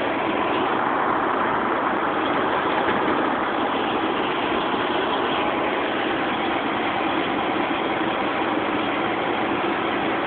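Fire truck engine running steadily, heard from inside the cab as a constant, unbroken noise with a faint hum.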